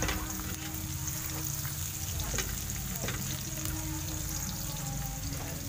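Chopped garlic sizzling and crackling steadily in hot oil in a wok, being sautéed until golden.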